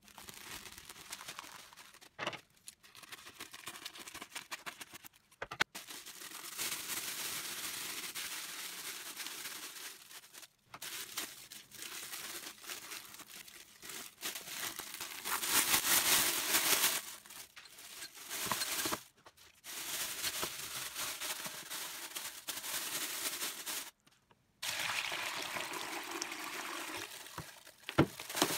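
Thin clear plastic bag crinkling and rustling as gloved hands handle it in a plastic bucket. The sound comes in stretches broken by several sudden short silences and is loudest around the middle.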